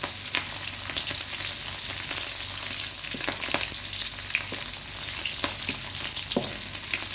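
Lemongrass, garlic and torch ginger flower sizzling in hot fish oil in an aluminium wok, being sautéed until fragrant. A wooden spatula stirs and scrapes them, knocking against the pan now and then.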